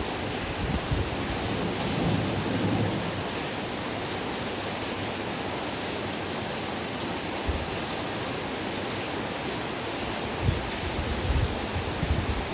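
Heavy rain falling in a steady, even hiss. There are a few brief low rumbling bumps about a second in and again near the end.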